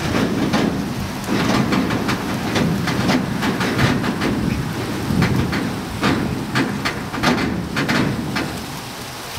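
Freight train's gondola cars rolling slowly past: a steady rumble of steel wheels on rail with many short clanks and creaks.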